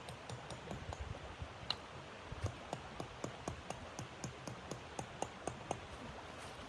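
A quick run of sharp crackles and clicks over a steady hiss, thickest and loudest in the middle.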